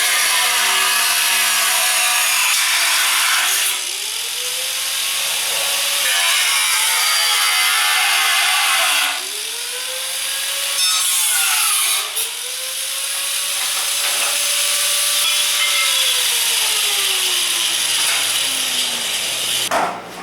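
A power tool working on sheet metal, loud and gritty. Its motor tone drops and climbs back in pitch several times as it is loaded, with short lulls about 4 and 9 seconds in and a slow fall in pitch near the end.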